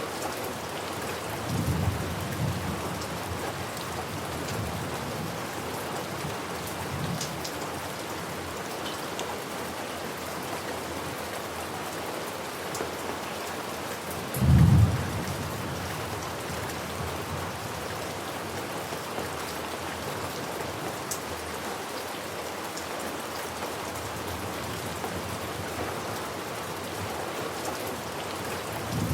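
Steady rain falling, with low thunder rumbling: soft rolls about 2 and 7 seconds in and one loud, short clap about halfway through.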